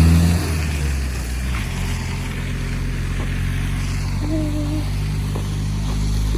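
A vehicle engine slowing down, then running steadily at low revs as a low hum. A brief faint tone sounds about four and a half seconds in.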